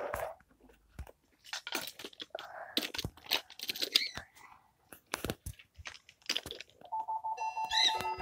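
Wooden Brio toy trains clattering and clicking irregularly along wooden track. About seven seconds in, a steady electronic tone with several held pitches comes in over the clicking.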